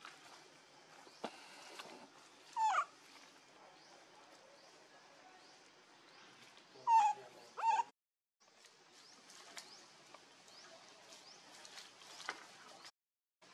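Baby monkey crying: three short, high, wavering cries, one about two and a half seconds in and two close together around seven seconds in.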